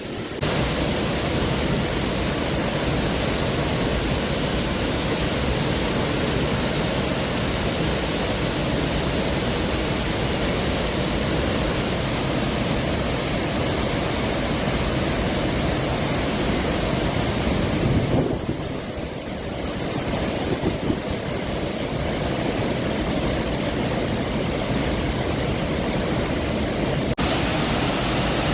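Steady roar of a large volume of water released through the dam's open gates. The sound shifts abruptly about 18 seconds in and again near the end.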